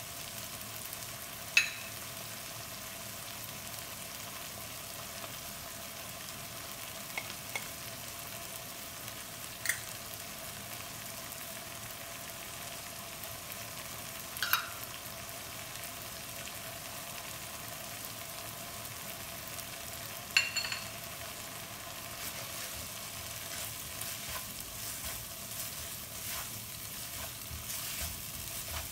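Diced vegetables and sauce sizzling gently in a non-stick wok, a steady hiss broken by four sharp, ringing taps as seasonings go in. From about three-quarters of the way through, a spatula scrapes and stirs through the mixture.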